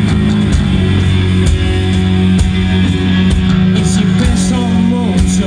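A rock band playing live: electric guitar, bass guitar and drums, with a man's voice singing over them from about four seconds in.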